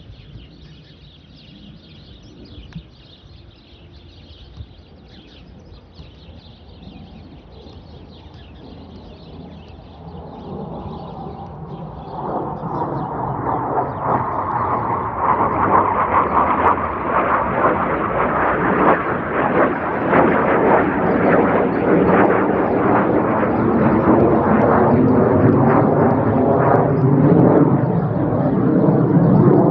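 Panavia Tornado fighter jet flying low overhead, its two RB199 turbofan engines making a jet rumble. The rumble is faint at first, swells from about ten seconds in, and stays loud to the end.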